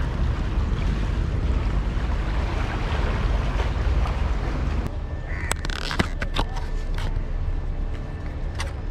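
Wind buffeting the microphone. It stops abruptly about five seconds in and is followed by a few sharp clicks and crackles as a clear plastic soft-lure pack is handled.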